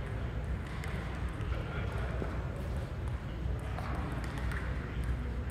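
Scattered, irregular clicks of table tennis balls bouncing and being struck around a busy tournament hall, over a steady low rumble of the hall.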